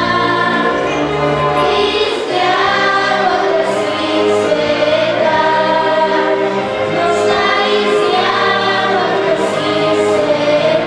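Girls' children's choir singing together into microphones, with instrumental accompaniment holding low chords underneath that change every few seconds.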